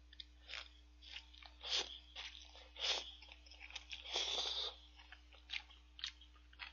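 Eating ramyeon noodles with chopsticks: short slurps and chewing about once a second, with a longer slurp about four seconds in.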